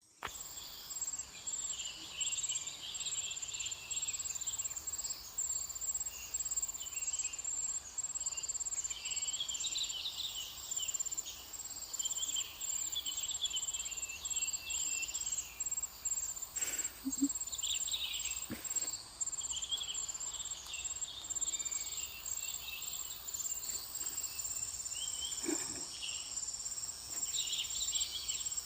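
Insects trilling in a steady, high, pulsing tone, with birds chirping on and off over it. A few short, sharp sounds break through about two-thirds of the way in and again near the end.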